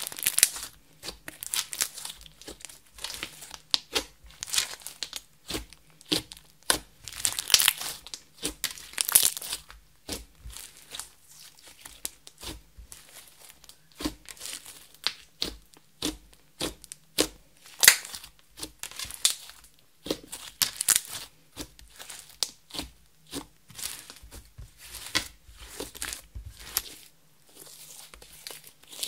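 Hands kneading, pressing, folding and stretching a large glossy slime, giving an irregular run of sticky clicks, pops and crackles with squishing between them. The clicks come thick in clusters a second or two long, then thin out.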